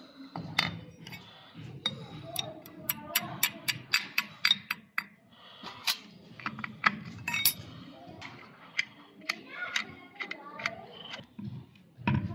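Small metal parts and hand tools of an inline diesel fuel injection pump clinking and clicking against each other. Irregular sharp taps, several in quick runs, come and go over a low background murmur.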